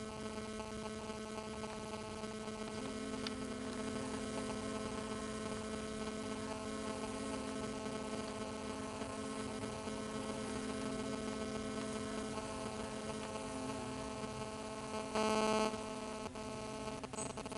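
European hornets buzzing in their nest inside a woodpile log, a steady, many-toned drone from the excited colony. About fifteen seconds in the same buzz swells briefly louder.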